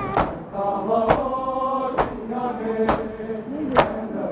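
A group of male mourners chanting a nauha (lament) in unison. It is kept in time by sharp, loud unison slaps of hands on bare chests (matam), about one beat a second, five beats in all.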